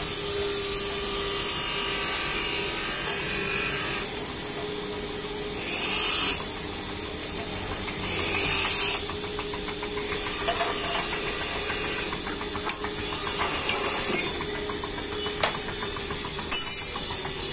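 Steady workshop machine hum, with a few faint metallic clicks of a wrench working bolts on an engine's flywheel housing and coupling. Two short hissing bursts come about six and eight seconds in.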